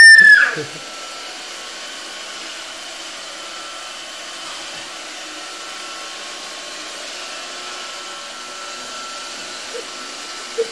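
Roomba robot vacuum running with a steady whirring hum. Over the first half second a loud, high, wavering whine carries over from before and then cuts off.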